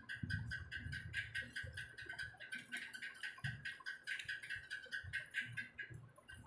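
Close-up chewing of a big mouthful of chicken biryani: rapid wet mouth smacks and clicks, about five or six a second, over low thuds of the jaw.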